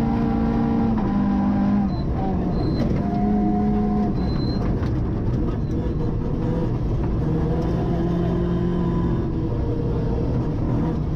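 Toyota Starlet rally car's engine heard from inside the cabin at full stage pace, its note rising and falling as the driver works the throttle, over loud road and snow noise.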